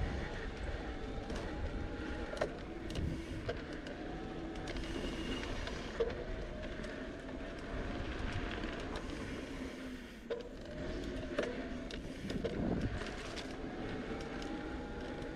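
Bicycle rolling over a sandy dirt trail: steady tyre and wind noise with scattered clicks and knocks from the bike rattling over bumps.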